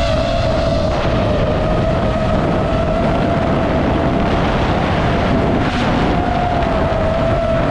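DJI FPV drone's motors and propellers running in flight: a steady high whine that wavers slightly in pitch, over heavy wind rush on the microphone of the camera mounted on the drone.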